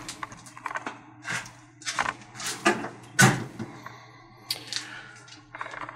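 Scattered knocks, bumps and rustles of a handheld camera being handled and carried around a metal electrical enclosure, the loudest bump about three seconds in, over a faint steady low hum.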